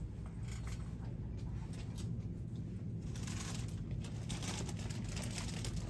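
Steady low hum of a shop's background with light clicks and rattles, then from about halfway a rustling crinkle of plastic snack packaging being handled.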